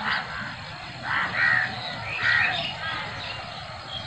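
Crows cawing: a few harsh caws, the loudest about one and two seconds in.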